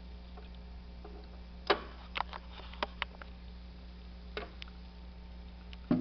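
Scattered sharp clicks and light knocks from the Technics-made MCS 6502 turntable being handled, ending in a heavier low thump as its plastic dust cover comes down. A steady low hum runs underneath.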